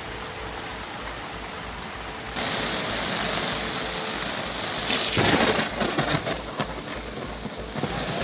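Rushing water: a steady loud hiss that jumps louder about two seconds in, with deep rumbling surges from about halfway through.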